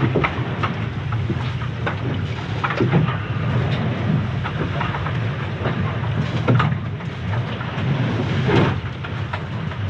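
Sea rushing along a Leopard 45 catamaran's hull, heard from inside the leeward aft cabin as a steady low rumble. Waves thud and splash against the hull repeatedly, the heaviest hits about three, six and a half, and eight and a half seconds in.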